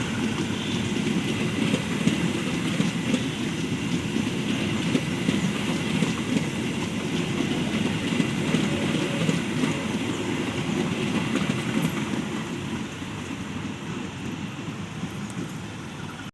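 A passenger train of stainless-steel carriages rolling slowly past, with a steady rumble of wheels on the rails that eases off toward the end.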